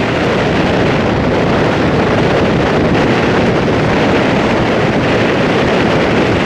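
Steady, loud wind buffeting the microphone on the deck of a powerboat running fast, with the boat's own rush mixed in.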